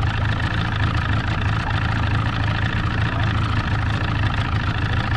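Boat's outboard motor running steadily, a constant low drone with no change in speed.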